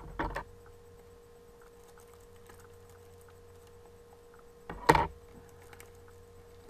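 Small plastic blind bag and tiny figure being handled: faint clicks and rustles over a steady hum, with one short, sharp handling noise about five seconds in, the loudest sound here.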